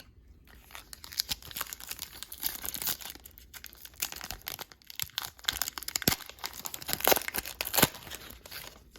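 A trading card pack wrapper being torn open and crinkled by hand: a continuous crackling, with a few sharper crinkles in the second half.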